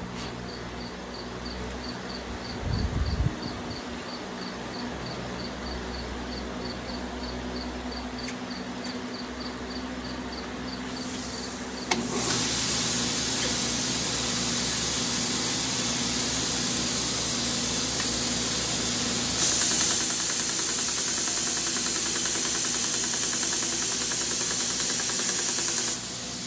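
Belt sander switching on with a click about halfway through, its abrasive belt then running with a steady loud hiss that swells briefly and drops off near the end. Before it starts, a quieter steady hum with a faint regular ticking.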